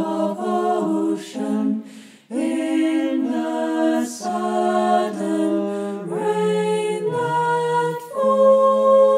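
Mixed-voice choir singing a cappella in close harmony, holding long chords. The sound breaks off briefly about two seconds in, and a louder sustained chord begins near the end.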